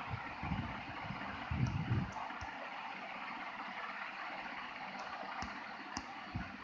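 Steady background hiss, with a few soft low thumps near the start and about two seconds in.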